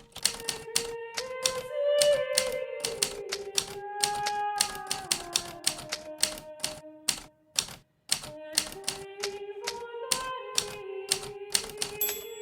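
Hermes Baby portable manual typewriter, its keys striking in a quick, uneven run of clacks, with a short break about two-thirds of the way through. Soft background music of held, slowly changing notes plays underneath.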